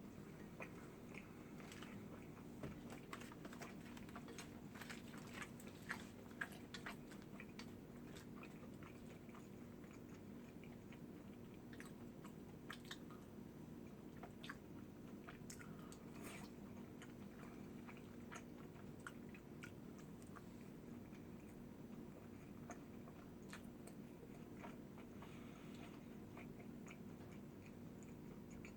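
A person chewing and biting food close to the microphone, with many small crunching and wet mouth clicks, thicker in the first half. A steady low hum runs underneath.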